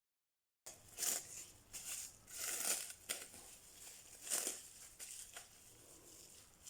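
Rustling, crinkling handling noises that start after a short stretch of silence and swell several times, loudest about a second in, around two and a half seconds and again past four seconds.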